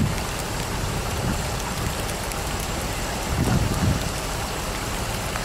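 Steady rain falling onto a flooded street, an even hiss. A brief low rumble rises over it about three and a half seconds in.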